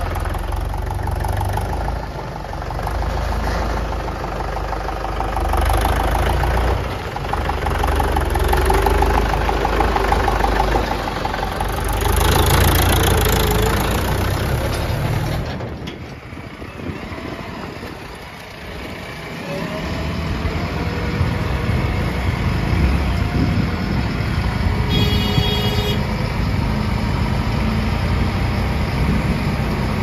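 Diesel engines of a Mahindra Yuvo tractor and then of a JCB 3DX backhoe loader running steadily, with a quieter dip after the cut about halfway through. A short beep sounds near the end.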